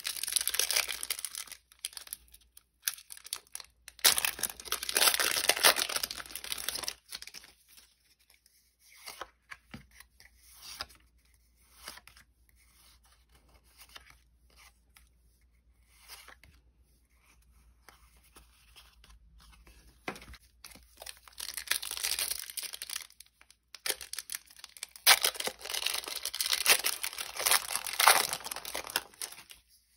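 Pokémon booster pack foil wrappers being torn open and crinkled, in four loud spells about 4, 20 and 25 seconds apart, with faint rustling between.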